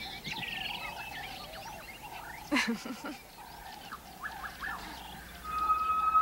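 Forest ambience of many birds chirping and trilling, with one brief louder call about two and a half seconds in. A steady held tone, the start of background music, comes in near the end.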